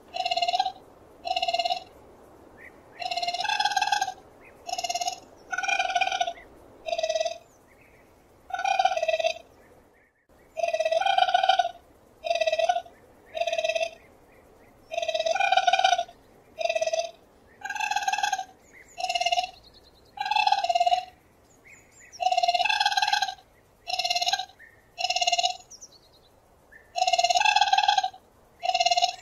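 Raccoon calls: a long series of short, high-pitched calls, roughly one a second, some coming in quick pairs, with quiet gaps between.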